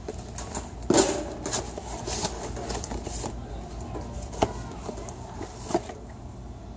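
Cardboard shipping case being torn open and rummaged through by hand: a loud rip of cardboard about a second in, crackling and rustling of the flaps, then a few sharp clicks as things inside are handled.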